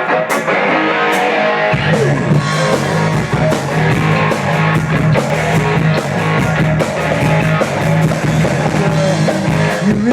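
Rock band playing live: guitar chords over regular drum hits, with a heavy low bass part coming in just under two seconds in.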